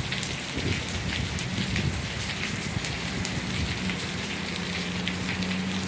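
Heavy downpour of rain, with many individual drops ticking close by, over a steady low hum.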